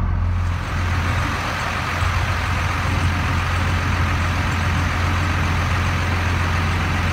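Cummins 5.9-litre diesel of a 1999 Ford F800 bucket truck idling steadily, a low even drone. A steady hiss comes in over it about half a second in.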